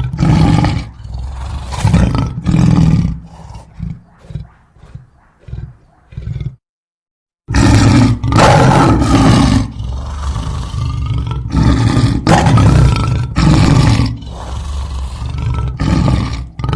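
Loud, repeated animal calls about a second apart. They fade for a few seconds and break off completely for about a second, about seven seconds in, then start up loudly again.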